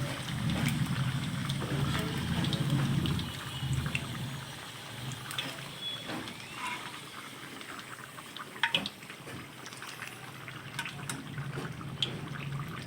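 Hot oil sizzling in a pan as browned potatoes are lifted out, with a few sharp clinks of a utensil against the pan.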